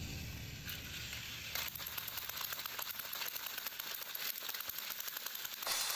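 Battery-powered toy train locomotives running on plastic track, a fast, even rattle of motors, gears and wheels. It starts about a second and a half in and stops just before the end.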